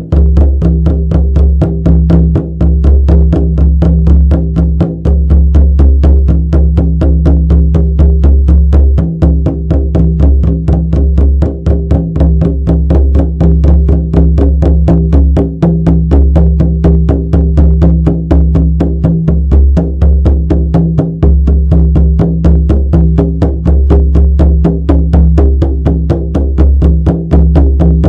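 Shamanic frame drum beaten in a steady, even rhythm of about four strikes a second, each stroke with a deep low boom.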